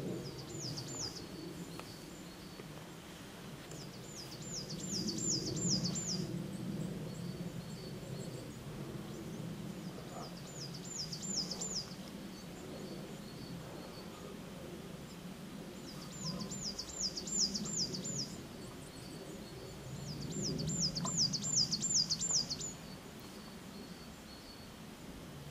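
A bird singing: about five phrases, one every four to five seconds, each a quick run of six to eight high, down-slurred whistles, over a steady low outdoor rumble.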